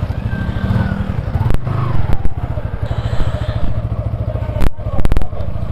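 Motorcycle engine running as the bike is ridden along at low speed. There are a few sharp knocks, one about a second and a half in and a quick cluster near the end.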